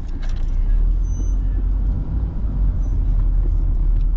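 Low, steady rumble of a car's engine and tyres heard inside the cabin while driving slowly, with a few light clicks at the start.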